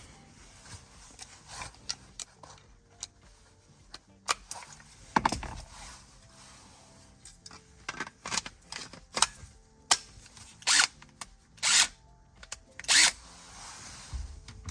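Hand tools being handled: scattered metal clicks and clatters as a socket and extension are swapped, with a few louder knocks in the second half.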